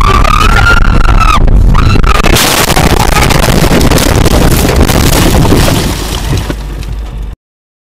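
Head-on collision between a truck and a minivan. Two long, high wails come first, then about two and a half seconds in the impact hits: a loud crash with the truck's windscreen shattering, rattling on for a few seconds and fading before it cuts off suddenly.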